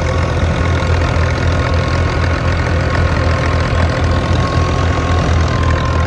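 An engine-driven wheat thresher running steadily at working speed. It makes a loud, even drone with a low engine hum and a steady whine over it.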